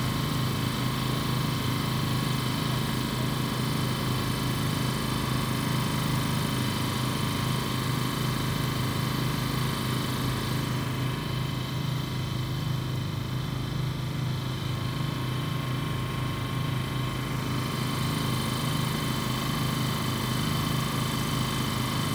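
An engine idling steadily: a constant low drone with a few fixed higher tones over it. The upper part of the sound dims for several seconds in the middle.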